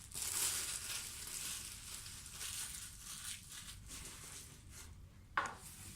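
Plastic cling wrap crinkling and tearing as it is worked off a laptop box by hand, with a short knock about five seconds in.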